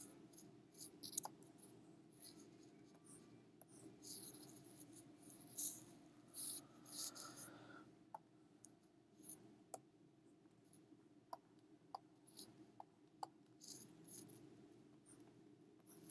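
Faint, scattered clicks and taps with a few brief light scratches, as of a stylus working on a drawing tablet, over a low steady hum.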